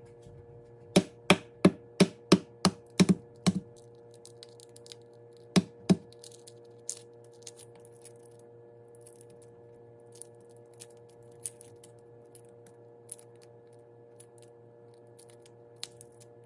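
Hard-boiled egg's shell being cracked by tapping it on the cutting board: a quick run of about eight sharp taps a second in and two more a couple of seconds later, then faint crackling as the shell is peeled away.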